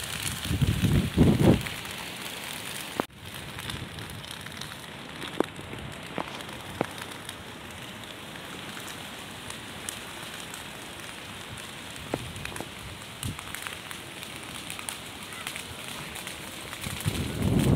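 Open fire burning through dry crop stubble and brush: a steady hiss of flames with scattered sharp crackles and pops. The sound briefly drops out about three seconds in.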